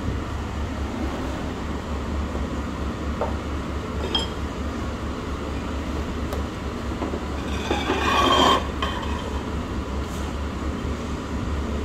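Restaurant dining-room background: a steady low hum, a small clink of glass or crockery about four seconds in, and a louder clatter lasting about a second near eight seconds in.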